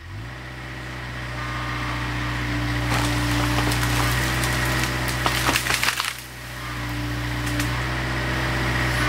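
Caterpillar 307 excavator's diesel engine running steadily under load, with a whine that comes and goes, while branches crack and splinter as the bucket tears into trees and brush, the cracking most dense between about three and six seconds in.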